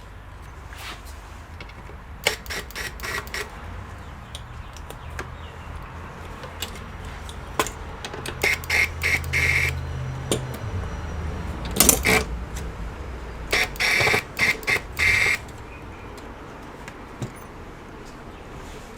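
Clicks, knocks and short scraping rattles of computer parts being handled during disassembly, in irregular clusters, with the loudest knock about twelve seconds in.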